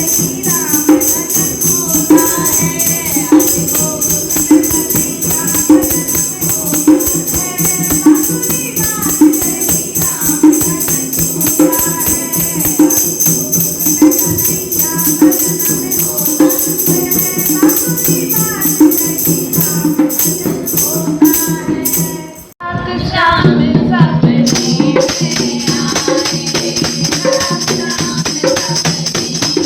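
Women singing a Krishna bhajan over a steady rhythmic beat with jingling tambourine-like percussion. About three quarters of the way through, the sound cuts out abruptly for a moment, then the singing and percussion resume.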